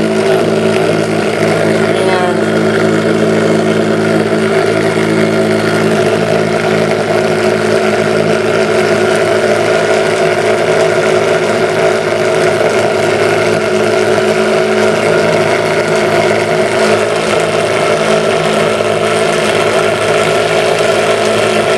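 Small Bedini SSG-style pulse motor running at speed, its rotor spinning fast. It makes a steady mechanical hum made of several fixed tones, with no change in speed.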